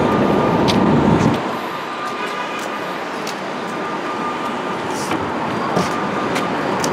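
City street traffic noise: a loud low rumble of passing vehicles that cuts off abruptly about a second and a half in, then a steady traffic hum with a few small clicks.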